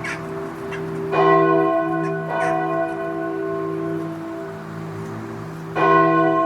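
Church bell tolling slowly, struck twice, about a second in and near the end, each stroke ringing on into a long hum. Short bird chirps come between the strokes.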